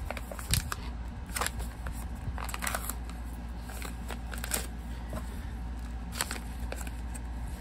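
Packaging rustling and crinkling as a pouch of cedar pieces is handled, in irregular short crackles.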